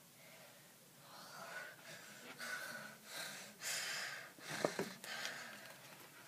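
A girl's breathing in a run of short huffs, with rustling of clothing as it is handled and one brief sharp squeak about four and a half seconds in.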